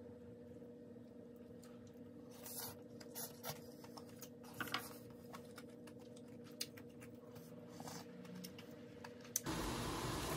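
Faint scattered clicks and taps of chopsticks and a wooden spoon against an earthenware pot of ramen, over a low steady hum. About nine and a half seconds in, a louder steady hiss starts.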